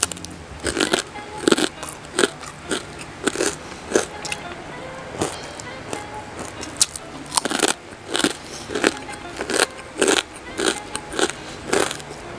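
Close-miked chewing and crunching of crispy deep-fried pork belly skin and rice eaten by hand, with sharp, irregular crunches roughly twice a second, over quiet background music.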